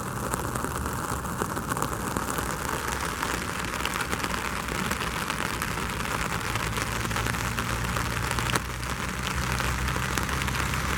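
Steady rain falling and pattering, a continuous hiss, with a faint low steady hum underneath.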